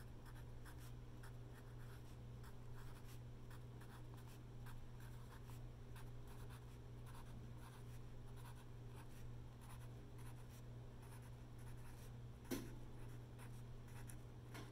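Pencil writing on lined composition-book paper: a run of faint, short scratchy strokes as numbers are written one after another, over a steady low hum. One sharper tap comes near the end.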